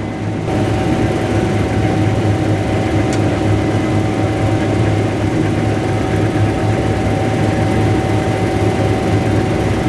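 Combine harvester running steadily while harvesting soybeans: a constant low engine hum with a steady whine over it.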